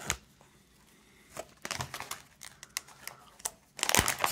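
Holographic foil pouch crinkling as fingers handle and open it: scattered sharp crinkles from about a second and a half in, then a louder burst of crinkling near the end.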